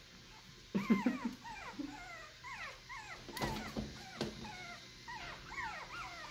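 Young Chihuahua puppies squeaking and whimpering in a run of short, high calls that start about a second in and keep coming several a second, with a couple of knocks around the middle.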